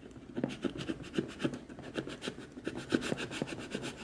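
Open scissor blade worked along the edge of a cardboard box, cutting through packing tape: a quick series of scraping strokes, about four a second.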